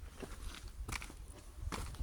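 Footsteps of a hiker walking on a trail, a step landing about every second, over a low rumble.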